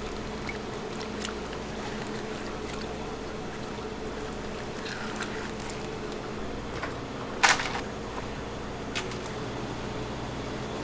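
Tomatoes being peeled by gloved hands in a steel tray of water: small wet splashes and squelches over a steady kitchen hum, with one sharp clack a little past the middle.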